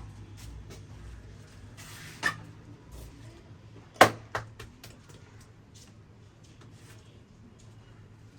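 Barber's hand massage: soft rubbing and small faint taps, with a sharp crack about two seconds in and a louder crack about four seconds in, followed quickly by a smaller one. A steady low hum runs underneath.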